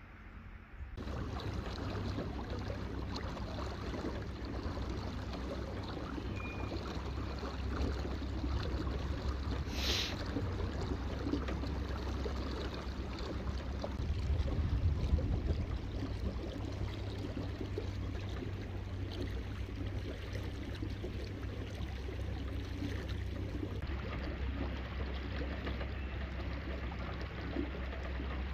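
Small boat under way on a lake: a steady low hum with water washing and splashing along the hull, starting about a second in. A brief high hiss about ten seconds in.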